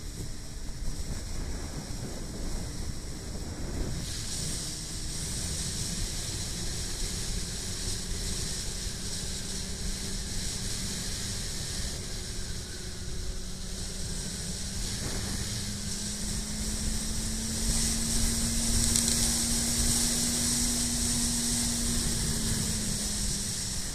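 Motorcycle engine running steadily under wind rush on the microphone; the engine note rises slowly in the second half and drops near the end, while the wind grows louder.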